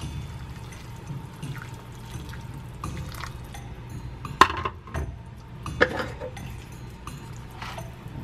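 Hot water poured from a kettle into a bowl of instant ramen, splashing onto the noodles. It is followed by two sharp knocks about four and a half and six seconds in, and chopsticks working in the noodles near the end.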